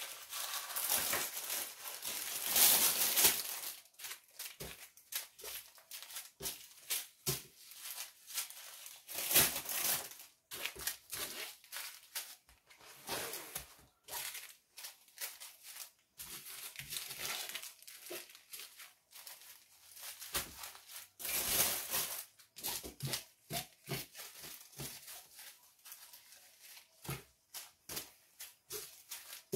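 Small plastic zip-lock bags of diamond painting drills crinkling and rustling as they are picked up and stacked by hand, in irregular bursts.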